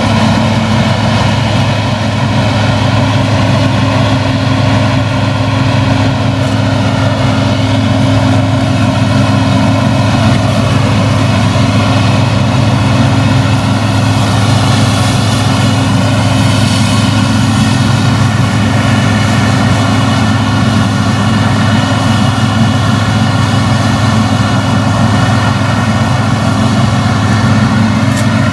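New Holland combine harvester working under load while harvesting grain: a steady heavy engine drone mixed with the constant hum of its threshing machinery.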